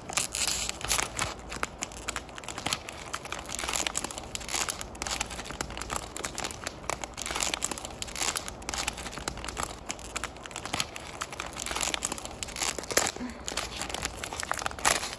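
Plastic wrapper of a Choco-Pie snack cake crinkling and tearing as fingers work it open, a dense, irregular run of small crackles.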